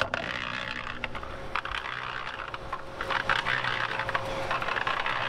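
Electric mini concrete mixer (Firman 120L) switched on with a click, then running: the motor hums with a steady whine that comes in about a second in, and the drum turns over its load of water and cement with a dense clatter of small clicks and rattles.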